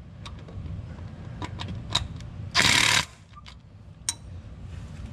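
A power tool runs in one short burst of about half a second, a little past halfway, snugging one of the 8 mm bolts that hold a crankshaft position sensor. A few light metallic clicks of the socket on the bolt come before it.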